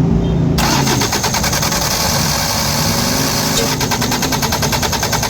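A diesel engine is turning over on its starter motor without firing. A rapid, even clatter starts about half a second in. The injection pump is suspected of not pumping fuel to the injector nozzles.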